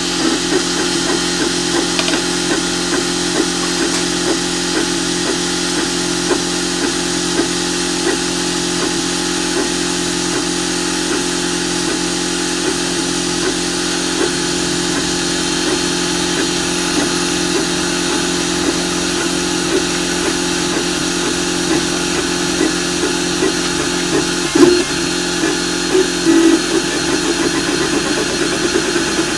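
Cubify 3D printer running, its stepper motors giving a steady hum with small regular ticks as the print head moves, and a few louder bumps near the end.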